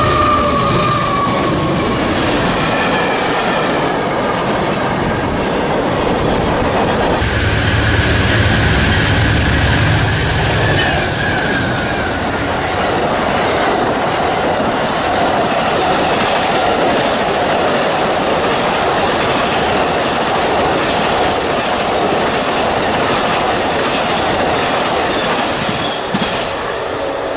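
A train passing close by, steel wheels squealing on the rails over a steady rumble and clatter of the wheels on the track.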